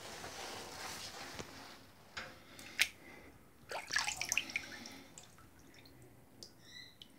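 Water sloshing in a shallow basin, then splashing and dripping as a hand scoops two small foam minnow lures out of the water. There are a couple of sharp clicks about two and three seconds in, and a short burst of splashes about four seconds in.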